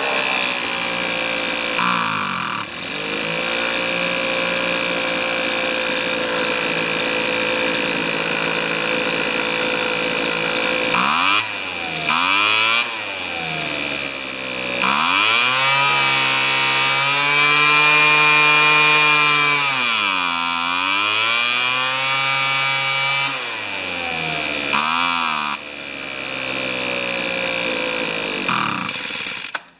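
Weed Eater leaf blower's small two-stroke engine running steadily, then revved up and back down several times, with one longer rev held high in the middle, before it is shut off near the end. It is being run while its carburetor's low and high mixture screws are adjusted.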